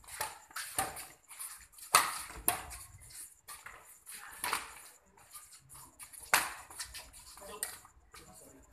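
Badminton rackets striking a shuttlecock during a rally: a string of sharp hits, about one every second or two.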